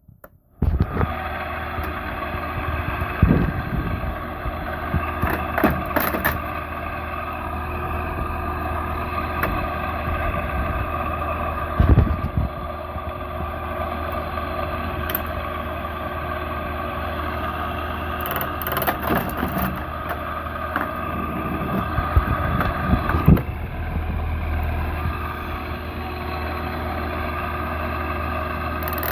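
An old window air conditioner running: a steady fan and compressor hum that starts suddenly less than a second in, with a few sharp knocks and rattles through it.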